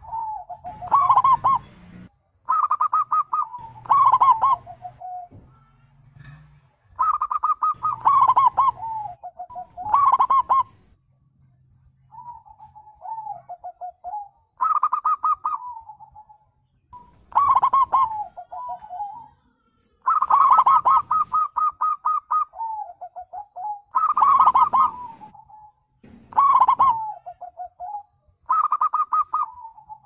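Zebra doves (perkutut) cooing. Repeated song phrases, each a quick stuttering run of notes followed by a lower rolling coo, come every second or two.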